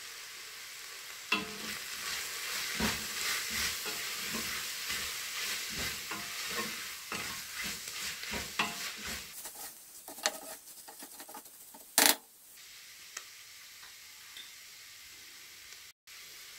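Sliced onions, mint and coriander sizzling in oil in an open pressure cooker. For the first several seconds a spatula stirs and scrapes against the pot with many small clicks. About twelve seconds in there is one loud knock, after which only a softer sizzle remains.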